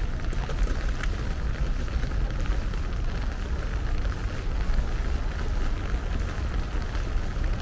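Steady rain falling, with scattered drops ticking over a constant low rumble.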